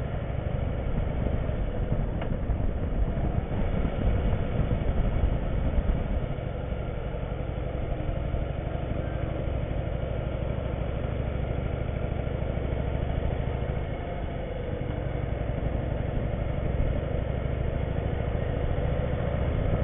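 Harley-Davidson Softail V-twin running steadily under way, mixed with a steady rush of wind and road noise.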